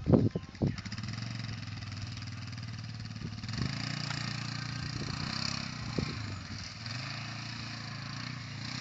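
ATV engine running as it drives through tall weeds, its pitch rising and falling a couple of times. A couple of sharp knocks in the first second.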